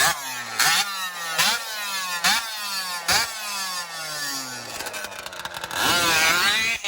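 Small two-stroke gas engine of a large-scale RC drag car, blipped hard about five times, its pitch falling back after each blip. Near the end it is held at high revs for about a second, then stops abruptly.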